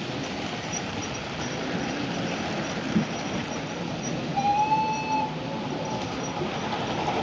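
O gauge model train running, a steady rumble, with one short whistle blast of about a second a little past the middle.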